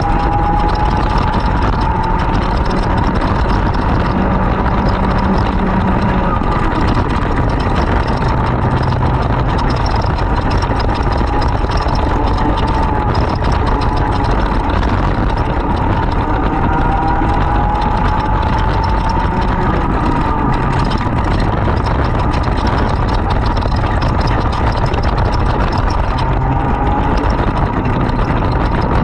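Racing kart engine running hard, its note climbing in long sweeps several times and dropping back as the kart accelerates out of corners and lifts for the next, with a heavy low rumble of wind and vibration underneath.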